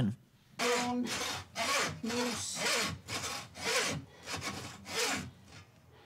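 Hand saw being pushed and pulled through caribou meat on a wooden cutting board, about two rasping strokes a second. A few strokes carry a brief squeal.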